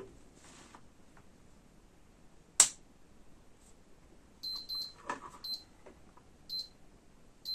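A single sharp click, then short high-pitched beeps from a computer power-supply tester during a load test: two quick beeps, then single beeps about a second apart.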